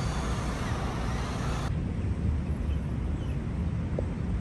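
Steady low rumble of city road traffic. About a second and a half in, the higher hiss drops away abruptly while the rumble goes on.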